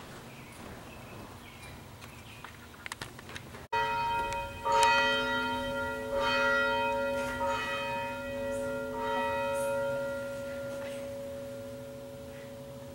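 Church bell ringing, starting suddenly about four seconds in, with a strike roughly every one and a half seconds and a lingering hum that slowly fades.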